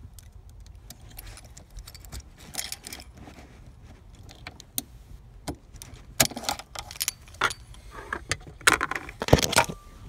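A bunch of keys on a ring jangling, with metallic clicks, as the ignition key and lock cylinder are wiggled and pulled out of the steering column. The clicks and jingles are sparse at first and come thicker and louder over the last four seconds.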